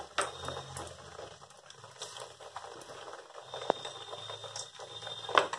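Gram-flour-battered potato slices frying in a kadhai of hot mustard oil: a soft sizzle with scattered crackles and clicks, and a sharper click near the end.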